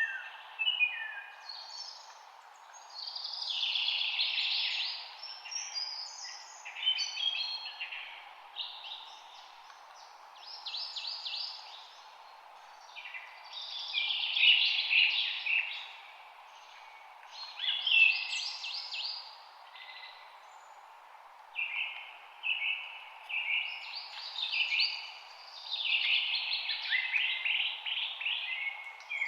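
Several birds singing and chirping, phrases overlapping and coming in clusters every few seconds, over a steady background hiss.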